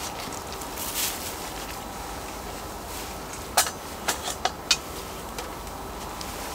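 Kimchi being laid onto a metal cauldron-lid griddle beside raw pork, with a soft shuffle about a second in and four sharp clicks and taps a little past halfway. A steady outdoor background hum runs underneath.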